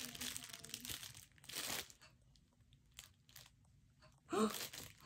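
Clear plastic packaging crinkling and rustling as a doll's wrapper is handled and pulled open, in short bursts with a quieter pause in the middle.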